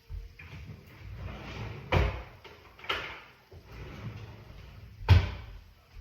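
A kitchen drawer being pulled open and pushed shut, with a few sharp knocks and rattles, the loudest bang about five seconds in.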